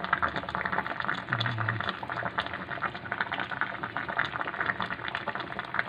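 Kinamatisang bangus (milkfish and tomato stew) simmering in an aluminium pot, its broth bubbling with a steady fine crackle.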